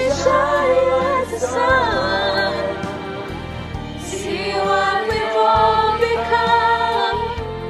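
Choir of teenage boys and girls singing a song together, their separately recorded home voices mixed into one, with notes held and moving.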